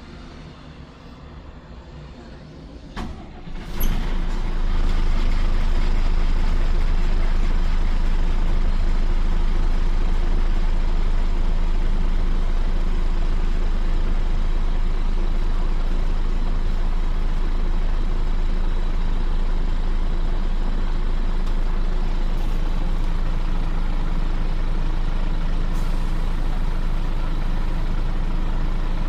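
Scania CN94UB OmniCity city bus's diesel engine starting up about four seconds in, catching with a sharp bang, then idling steadily and loudly.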